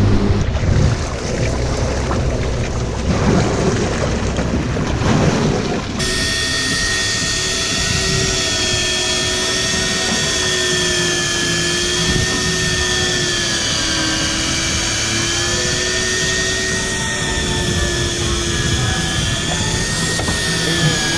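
Boat running under way, engine noise mixed with rushing water and wind. After a cut about six seconds in, a steady motor whine follows, its pitch wavering slightly.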